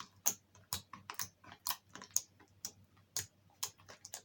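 Jelly slime, mixed with toothpaste, being pressed and folded by hand so that it clicks, about two sharp clicks a second in an even rhythm.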